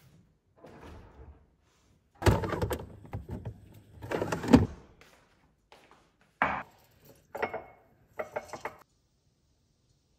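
A kitchen cupboard door opened and crockery handled, a loud clattering rummage for a few seconds. Then a handful of short clinks and knocks as a ceramic cup and saucer are set down on a stone counter, one clink briefly ringing.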